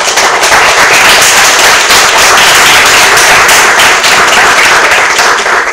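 Audience applauding, loud and close, dying away at the end.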